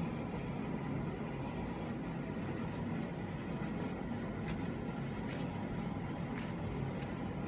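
Imasu centrifugal bathroom exhaust fan running steadily: an even, low rushing noise with a faint steady tone on top. A few faint ticks come in the second half.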